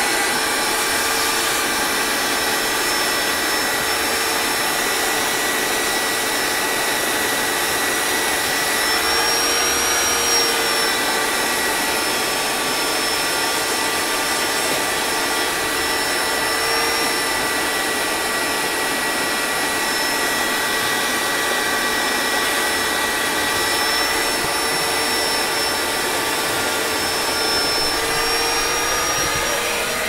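Vacuum cleaner running steadily: a rushing air hiss with a constant motor whine, its pitch lifting slightly a few times.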